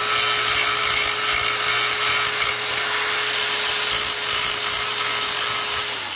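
DeWalt angle grinder running at full speed, its abrasive disc grinding rust off the steel ends of a brake pad's backing plate, so the pad can slide freely in the caliper bracket guides. A steady motor whine under harsh grinding noise, starting to wind down right at the end.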